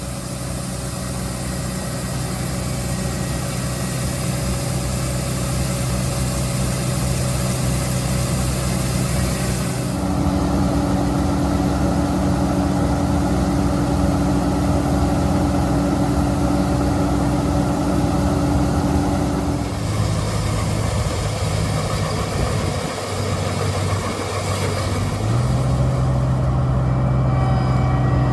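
International 1480 Axial-Flow combine's 190 hp diesel running steadily under harvesting load. Its pitch and tone change abruptly about a third of the way in, two thirds of the way in, and again near the end.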